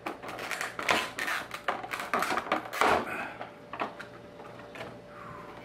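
Clear plastic packaging being handled and pulled off a vinyl figure: a run of sharp crinkles and crackles over the first three seconds, then fewer and quieter ones.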